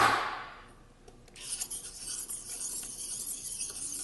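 Threaded front name ring of a Minolta MD Tele Rokkor-X 135mm lens being unscrewed by hand, its threads rubbing with a steady rasp and faint clicks from about a second in. There is a short scrape at the very start.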